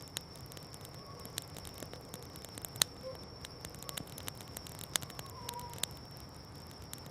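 Campfire crackling with sharp, irregular pops over a steady high-pitched trill of night insects.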